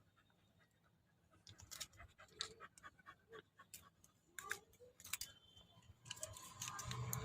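Faint scattered clicks and crinkles of a chewable-tablet blister pack being worked open; the pack is very tight. Near the end a dog's panting comes back in.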